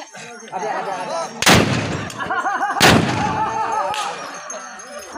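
Two loud gunshots about a second and a half apart from traditional long guns, with a lighter crack near the end. Men shout and chant between and after the shots.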